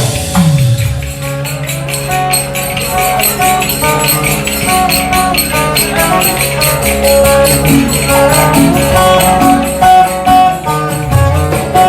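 Instrumental interlude of Turkish folk music: a melody of held notes over a steady low drone, with constant bright jingling of zil (small cymbals) keeping a fast rhythm.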